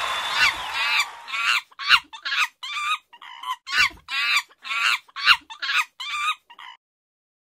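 A woman's high-pitched cackling laughter in a string of short shrieking bursts, about two a second, that stops abruptly near the end.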